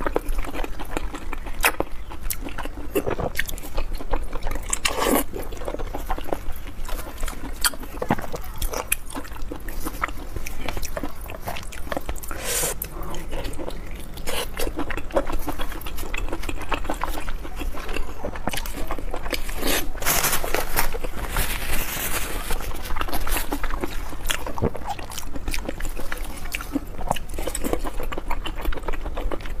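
Close-miked eating of braised pig stomach and large intestine: wet chewing and biting with many short, sharp mouth clicks and smacks, and a few longer wet, noisy stretches.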